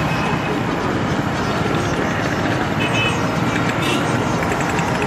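Steady street traffic noise: vehicle engines and tyres, with a brief high-pitched sound about three seconds in.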